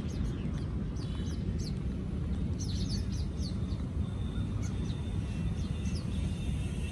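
Small birds chirping in several quick runs of short, high, falling notes, over a steady low rumble of wind on the microphone.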